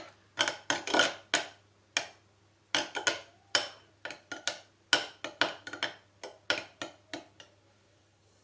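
A utensil stirring sauce in a bowl: irregular clinks and scrapes against the bowl, about one or two a second, stopping about a second before the end.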